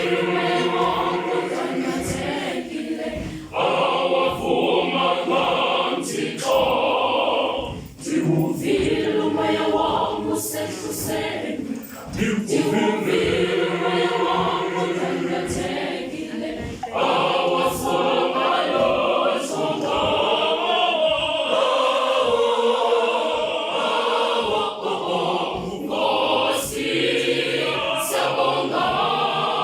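High school choir singing in harmony, in phrases broken by short pauses every few seconds.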